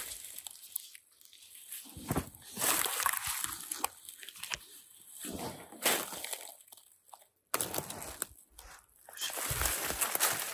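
Footsteps crunching through dry leaf litter and twigs in uneven bursts with short pauses, with brush rustling against clothing.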